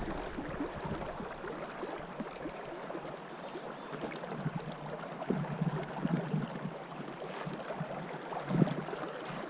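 Steady rush of flowing river water in the Madison River channel, with a few faint low bumps about five and a half and eight and a half seconds in.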